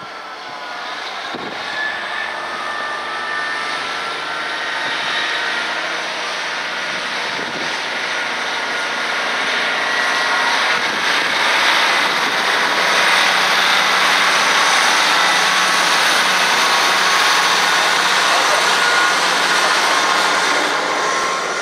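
Class 158 diesel multiple unit's engines running as the train moves. The sound is steady, growing louder over the first half, then cutting off just before the end.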